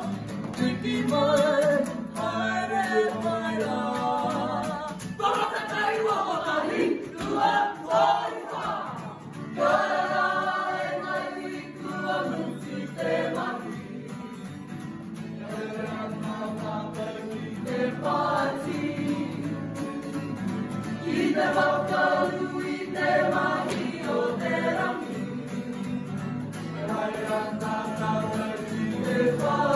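A Māori group of young performers singing an action song together, with phrases rising and breaking every few seconds over a steadily strummed acoustic guitar.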